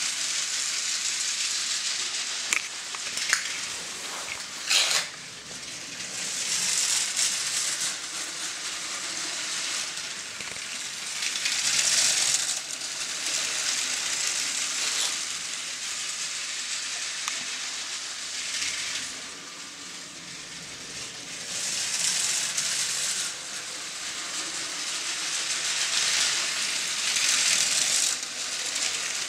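LEGO train running on plastic track: a steady rattling clatter of wheels on the rails that swells and fades every few seconds as the train comes round its loop, with a few sharp clicks in the first five seconds.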